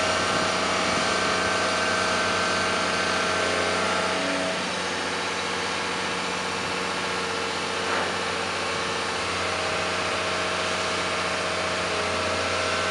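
Diesel engine of a New Holland MH 6.6 wheeled excavator running steadily, with a higher whine over the engine hum. The whine drops away about four seconds in and comes back near the end, and there is one brief knock about eight seconds in.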